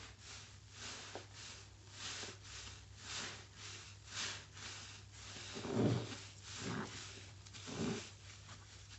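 A drenched foam sponge squeezed over and over in soapy water by rubber-gloved hands: wet squelches with crackling foam, about one to two a second, the deepest and loudest about six seconds in and again near eight seconds.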